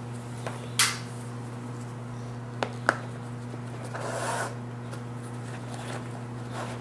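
Laces being threaded and pulled through the eyelets of a nylon and nubuck sneaker upper by hand: soft rubbing and rustling, with a short sharp swish about a second in, two small clicks near the three-second mark, and a longer rustle around four seconds. A steady low hum runs underneath.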